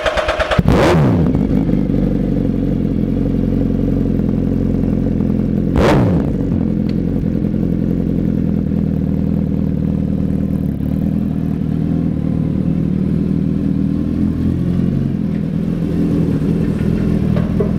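Suzuki Hayabusa inline-four idling through a Brock's Performance exhaust, blipped twice, under a second in and about five seconds later, each rev rising sharply and falling back to a steady idle.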